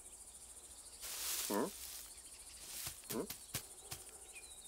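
Cartoon cat sound effects over faint insect chirping: a short rustle of grass about a second in, then two brief cat noises that drop in pitch, with a few soft ticks.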